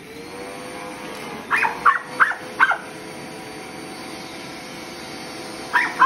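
Upright vacuum cleaner switched on and running with a steady motor hum, while a miniature schnauzer barks four times in quick succession about a second and a half in and once more near the end.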